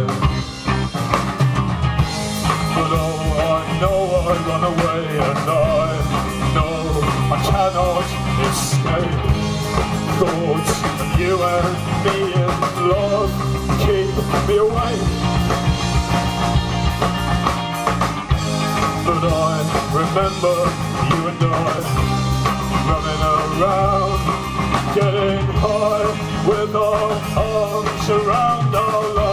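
Live rock band playing an instrumental passage, with a wandering lead melody over a dense low end and a steady beat.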